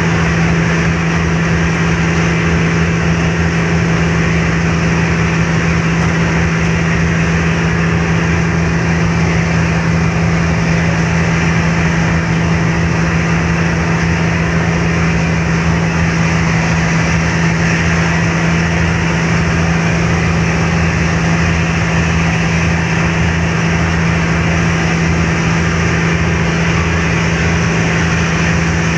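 Car ferry's engines running steadily under way: a constant low hum over an even rush of noise.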